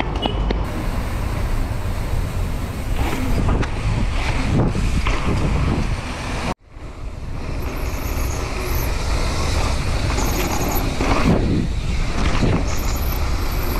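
Wind rushing over an action camera's microphone and tyres rolling as a mountain bike rides at speed, first beside road traffic, then on cobbles and dirt. The sound cuts out suddenly for a moment about halfway through and builds back up.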